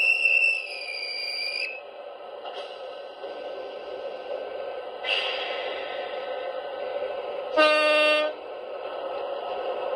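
Train horn sounds recorded on a flexi-disc (sonosheet) and played back on a portable record player. There is a high horn tone at the start lasting under two seconds, a fainter high tone about five seconds in, and a loud, lower horn blast just before eight seconds, all over steady background noise from the recording.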